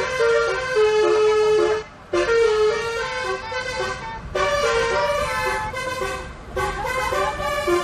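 Bus telolet horn: a set of multi-tone bus horns playing a quick stepping tune of held notes, with a short break about two seconds in.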